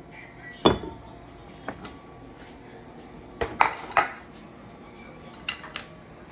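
Metal spoon knocking and clinking against a stainless saucepan and plate while grits are served. About seven sharp clinks: the loudest about a second in, a quick cluster around the middle, and two more near the end.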